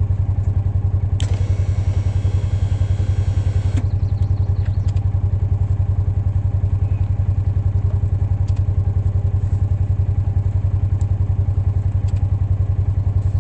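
Small engine running steadily at idle with a fast, even pulse. About a second in, a hiss starts and lasts a couple of seconds.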